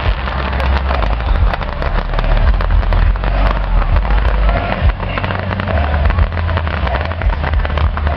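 Fireworks going off in a dense, continuous barrage of pops and crackles over a deep rumble.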